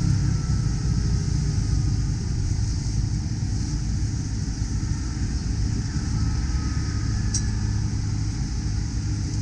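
Street ambience: a steady low rumble with a thin hiss above it, and a single sharp click about seven seconds in.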